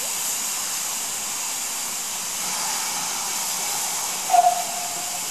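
Steam locomotive moving slowly with a steady hiss of steam escaping from its open cylinder drain cocks. A short, clear tone sounds about four seconds in.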